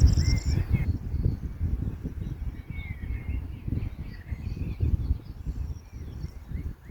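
Birds chirping faintly, in short scattered calls, over a louder, uneven low rumble.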